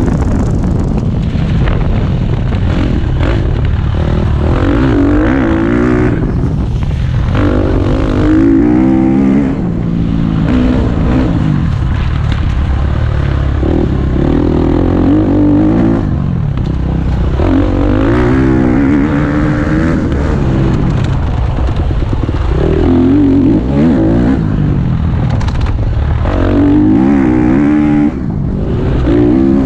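KTM 250 SX-F single-cylinder four-stroke motocross engine being ridden hard on a dirt track. The revs climb and drop back every few seconds as the rider accelerates, shifts and rolls off the throttle.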